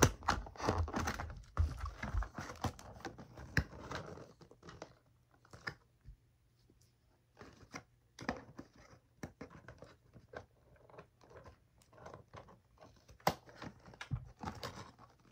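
Hands handling a plastic toy van and its packaging: irregular clicks, taps and crinkles, busy for the first four seconds or so, then sparser. It is a struggle to get the packaging open.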